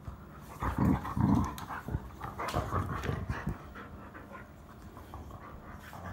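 A dog mouthing a person's hand in play, making two loud, low throaty sounds about a second in, then a string of shorter ones, with panting.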